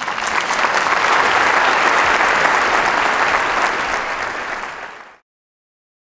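Audience applauding steadily. The applause fades a little, then cuts off abruptly about five seconds in.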